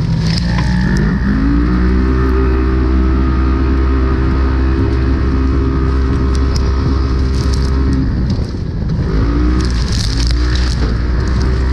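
Polaris RZR race UTV's engine running hard under heavy throttle, heard from inside the cab over a heavy low rumble from the rough course. The pitch dips and climbs back right at the start and again about eight seconds in, holding steady in between, with a brief rattle near the end.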